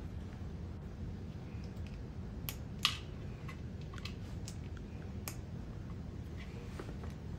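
Scattered small clicks and fabric handling as the neck closure of a MOPP protective suit's jacket and hood is fastened by hand, with one sharper click about three seconds in. Under it runs a steady low room hum.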